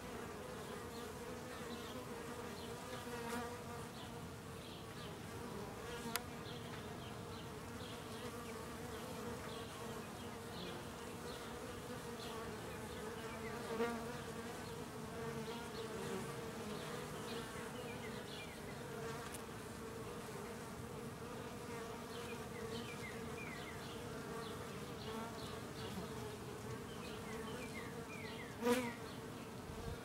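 Honeybees buzzing at a hive entrance: a steady hum of many beating wings, with brief louder swells a couple of times, the strongest near the end.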